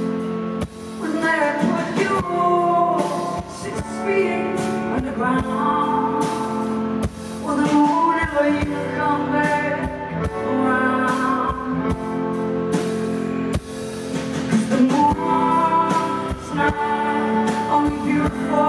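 A live rock band playing, with a woman singing long, held notes on lead vocals over drums and keyboard.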